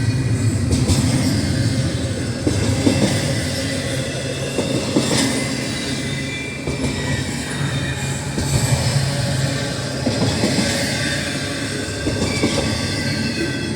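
Double-stack freight train rolling past: a steady rumble of steel wheels on rail, with scattered clanks and some faint high wheel squeal.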